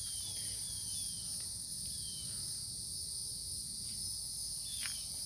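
Steady high-pitched chorus of insects outdoors, with faint short falling chirps repeating about every half second, over a low rumble.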